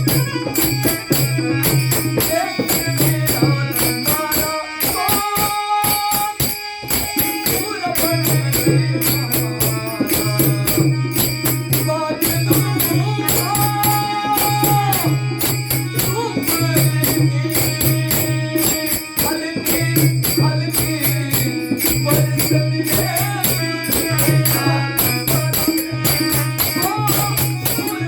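Instrumental passage of a Marathi devotional folk song: fast, steady jingling percussion over a repeating low drum beat, with a held melody note sounding twice.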